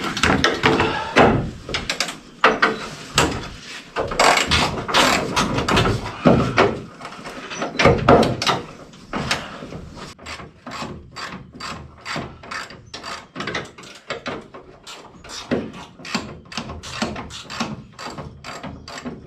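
Hand ratchet wrench clicking as hood hinge bolts are loosened. The first half holds irregular knocks and handling noise; from about halfway the ratchet settles into quick, even clicks, about two or three a second.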